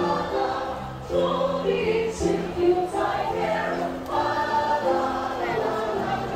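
A choir of many voices singing a holiday carol in held notes, with short breaks between phrases about one and four seconds in.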